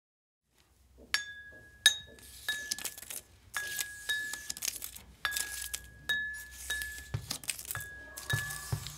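Repeated glassy clinks, struck irregularly about once or twice a second, each ringing briefly at the same clear pitch, starting about a second in.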